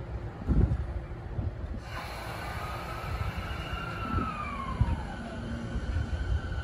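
JR 209 series electric train starting to pull away, its inverter whining. The whine climbs slightly, then slides down in pitch as the train gathers speed, and settles into a steady tone, over a low rumble from the train.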